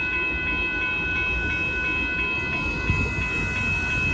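Railroad grade-crossing warning bell ringing steadily over the low rumble of a Union Pacific freight train's cars rolling through the crossing.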